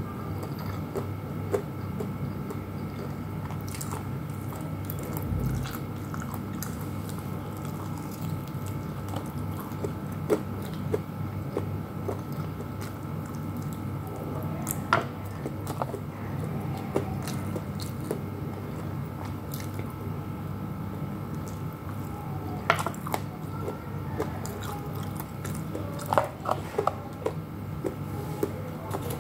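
A person chewing and biting chicken and rice eaten by hand, with small scattered clicks and smacks close to the microphone, over a steady low hum.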